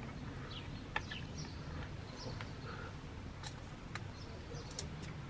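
Quiet room hum with a few light clicks from handling small electronic parts and screws, and faint bird chirps in the background.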